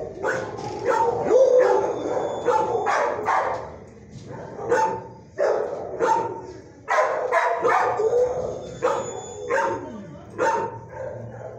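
Shelter dogs barking in a kennel block: many barks in quick succession, coming in volleys with short pauses and thinning out near the end.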